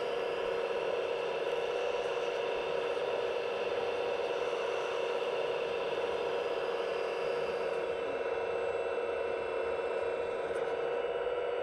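Scale radio-controlled construction machine's hydraulic pump and electric motors running with a steady whine.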